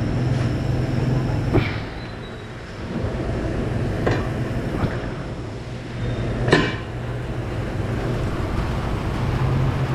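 Tire-shop machinery running with a steady low hum, with four sharp knocks from tire-changing work on the wheel, the loudest one about six and a half seconds in.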